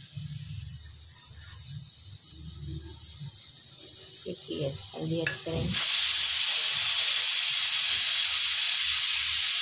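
Pressure cooker letting off steam: a loud, steady hiss that starts suddenly about six seconds in. Before it, a spoon clinks lightly against the spice containers.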